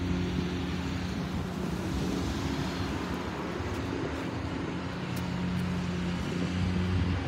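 Road traffic noise with a steady low engine hum.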